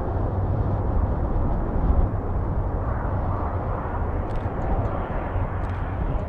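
Air Canada Boeing 787-9's Rolls-Royce Trent 1000 jet engines running as the airliner rolls down the runway after landing: a steady, dense rumble. Wind buffets the microphone, adding a heavy low rumble.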